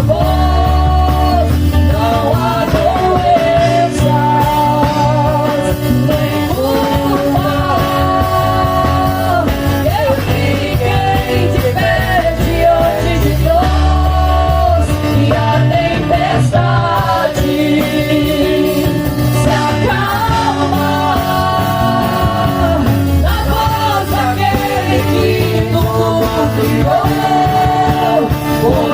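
Live gospel band music, steady and loud, with a sung melody line over the band.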